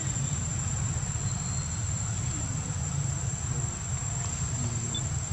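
Insects droning steadily in one unbroken high-pitched tone, over a steady low rumble.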